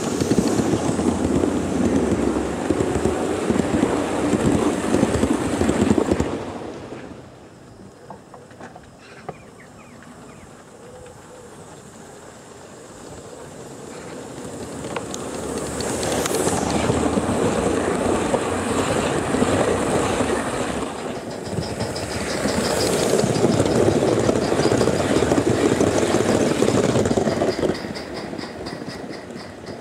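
Gauge 1 model train running past close by, its wheels rumbling and clicking over the track. The sound fades away about seven seconds in, then a train rumbles closer again from about fourteen seconds, is loudest in the mid-twenties, and drops away near the end.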